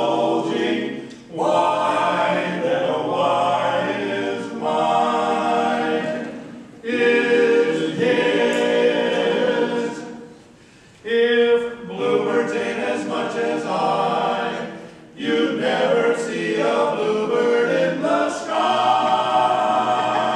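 Barbershop quartet of four men singing a cappella in close four-part harmony, holding chords in phrases broken by short pauses.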